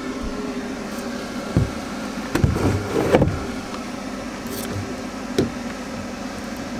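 Handling noises from a large plastic water jug and a battery-powered jug-top water pump being set back on it: several knocks and clunks, the loudest about two and a half to three seconds in, over a steady low hum.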